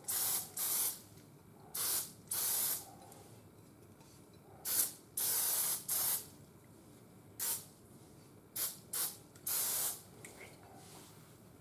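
Aerosol can of Ballistol oil sprayed in short bursts onto a shotgun barrel: about ten hissing puffs, some brief and some up to about a second long, with pauses between them.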